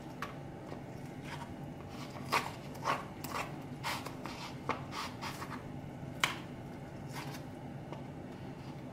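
Chopsticks scraping and tapping against a plastic plate as they tear cooked chicken breast into shreds: irregular light clicks and short scrapes, a few of them sharper.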